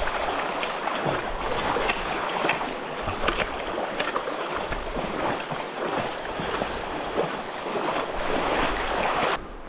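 Muddy river water splashing and sloshing close to the microphone as a hiker moves through deep water, with many small irregular splashes. It cuts off suddenly near the end.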